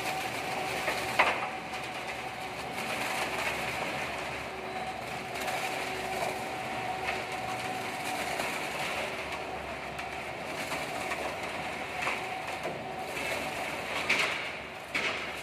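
Reversible drum mixer running, its rotating drum discharging a dry, crumbly mix in a steady rattling pour onto a heap over a constant machine hum. A few sharp knocks stand out, the loudest about a second in.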